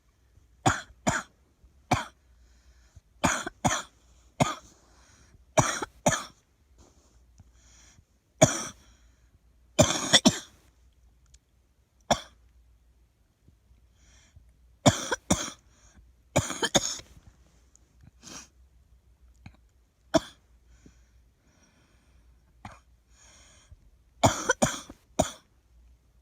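A girl coughing repeatedly: a dozen or so short, sharp coughs, often in pairs or threes, with brief pauses between the bouts.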